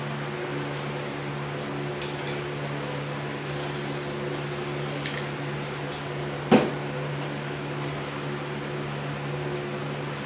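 Aerosol spray can hissing for about two seconds, a few seconds in, over the steady hum of a box fan. A few light clicks, and one sharp knock about six and a half seconds in.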